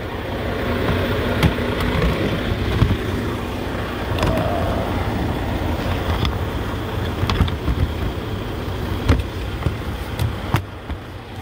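Plastic dash fuse-panel cover being handled and snapped back into place: scattered sharp clicks and knocks over a steady low rumble in the truck cab.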